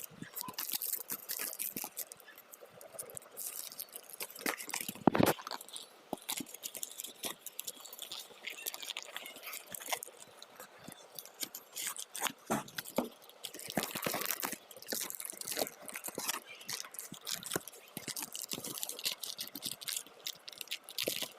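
Packaging being torn open and handled while manga are unboxed, sped up in fast motion: a dense run of quick crinkles, crackles and scrapes, with a louder knock about five seconds in.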